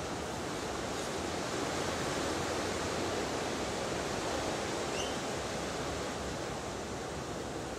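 Steady rushing outdoor background noise, even in level throughout, with one brief faint high chirp about five seconds in.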